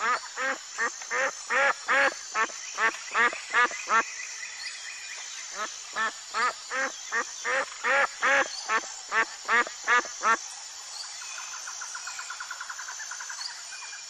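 A duck quacking in two runs of about a dozen calls each, two or three a second, the calls growing louder through each run. A soft, fast trill follows near the end.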